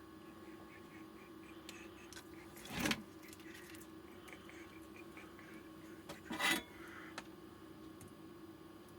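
Faint handling noise from hands working on a battery pack's wiring: two short rubbing, scraping sounds, about three seconds and six and a half seconds in, over a low steady hum.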